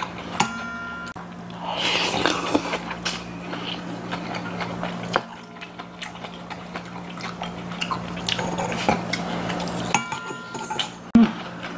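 Chopsticks and a spoon clicking and clinking against stainless steel bowls and dishes while eating, with a metal bowl ringing briefly near the start and again near the end.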